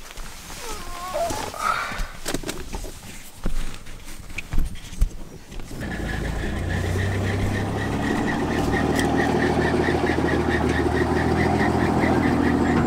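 Scattered clicks and knocks, then about six seconds in a vehicle engine comes in and keeps idling steadily, with a fast, regular ticking of about three a second over it.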